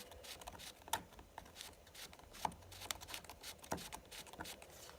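Faint, irregular clicks and taps of a cardboard board book being handled, its movable slider tabs worked and pages touched.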